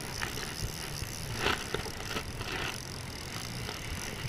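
Fly reel's click-and-pawl drag ratcheting in uneven runs as a hooked Dolly Varden is reeled in on a spey rod, over steady river and wind noise.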